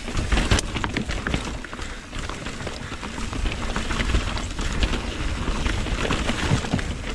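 Mountain bike riding down a rough, rocky trail: tyres rattling over stones, with frequent irregular knocks and clatter from the bike and a steady low rumble.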